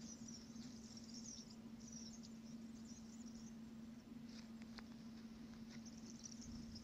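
Near silence: a faint steady low hum with a faint high hiss.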